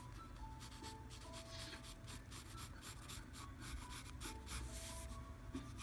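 Pencil scratching on lined notebook paper in many short, quick strokes while sketching a curved outline.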